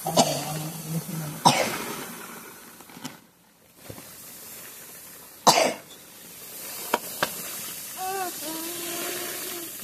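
Wheat grain pouring from a sack onto a plastic tarp, a steady hiss that drops away briefly a little past three seconds in. A person coughs sharply twice, about a second and a half and five and a half seconds in.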